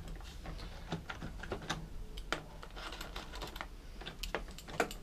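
Irregular light clicks and taps of plastic as a screwdriver and hands work the air filter cover off a Briggs & Stratton lawnmower engine.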